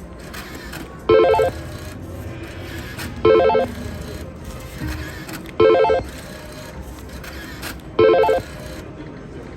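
Electronic slot machine chime: a short, loud warbling ring, like a telephone bell, repeating four times about every two and a quarter seconds over the steady din of a casino floor.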